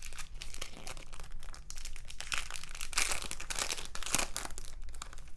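Clear plastic sticker packaging crinkling and crackling as it is handled, with sticker sheets sliding against it; the crinkling grows louder about halfway through.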